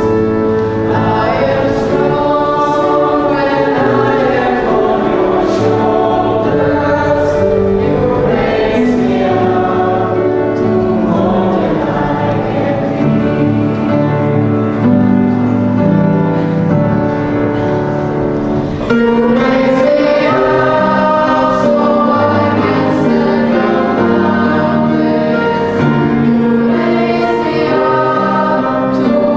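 Music: a group of voices singing a song together over instrumental backing with a steady beat. The music gets a little louder a little after halfway.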